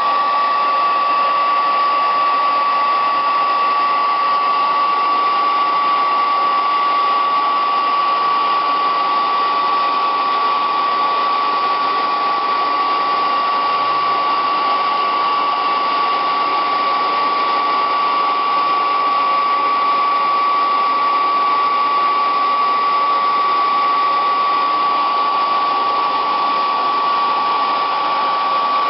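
Hair dryer running steadily, a constant high whine over a rush of air, heating heatshrink tubing to shrink it over sleeved fan cable.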